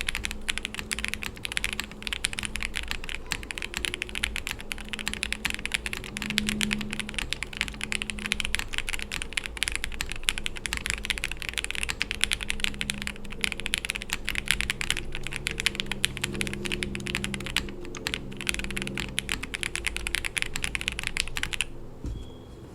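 Fast, continuous typing on a Tiger Lite gasket-mount mechanical keyboard with lubed Jwick Red linear switches, a polycarbonate plate and GMK keycaps. The typing stops about a second before the end.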